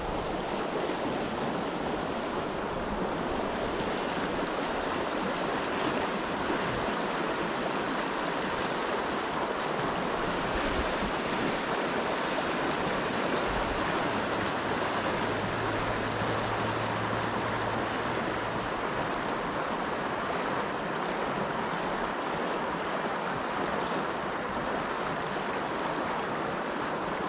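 Steady rushing of a creek's riffle, fast water running over rocks, at an even level throughout.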